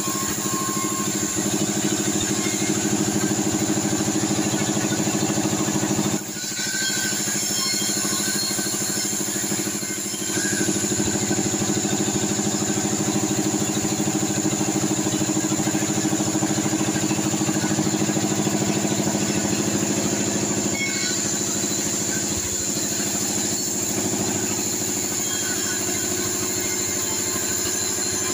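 T 36 band sawmill running steadily while sawing sengon logs. Its machinery makes a continuous mechanical drone under a high steady whine, with brief dips in loudness about six and ten seconds in.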